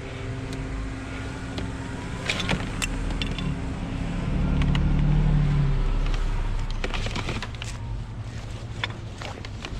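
A motor vehicle passing by, its low engine and tyre sound swelling and fading around the middle, over a steady low hum. Scattered sharp clicks and clinks of metal being handled sound a few times.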